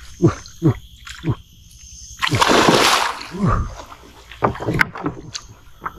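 Water splashing hard for most of a second about two seconds in, with shorter sounds falling in pitch before and after it, as a hooked snakehead thrashes at the swamp surface. Insects keep up a steady high shrill behind.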